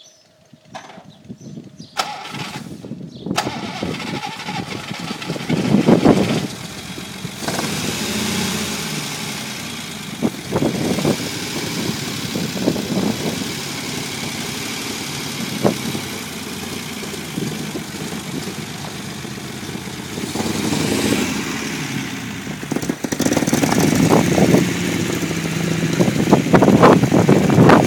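Unimog 404's petrol engine started for the first time after a rebuild and rewire: it comes to life about three seconds in and keeps running, rising and falling in level several times and louder near the end.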